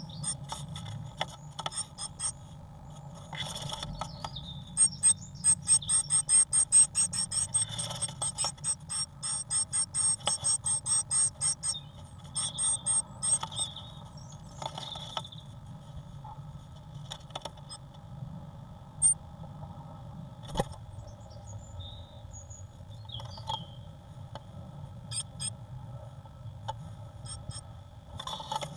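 Great tit inside a wooden nest box, tapping and scratching at the wood with its bill and feet. A fast run of sharp taps, about three or four a second, starts about five seconds in and lasts until about twelve seconds in. Scattered scrapes and knocks follow.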